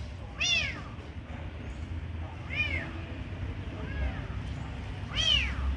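Four kitten meows, each rising then falling in pitch, one to two seconds apart; the third is fainter than the others.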